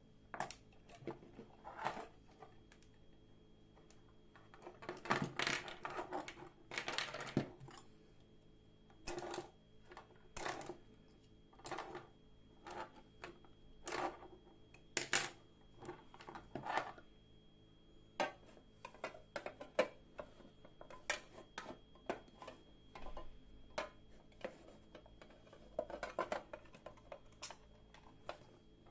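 Hand work on a rusty metal wrench: irregular clicks and knocks of metal on a hard surface, with a few short scraping strokes about five to seven seconds in.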